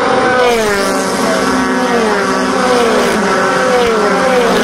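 Several USF2000 open-wheel race cars passing one after another at speed, each engine note dropping in pitch as it goes by.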